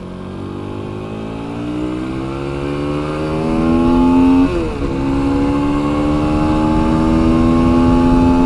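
Aprilia SX125's single-cylinder four-stroke engine accelerating hard, its pitch climbing and growing louder. About halfway through there is one quick upshift, after which the pitch climbs again more slowly.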